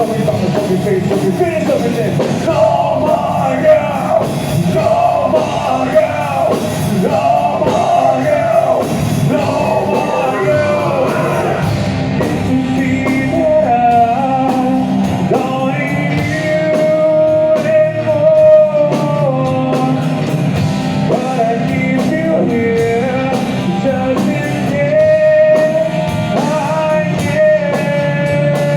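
Nu metal band playing live in rehearsal: guitars, bass and drums, with singing and some shouting over the band.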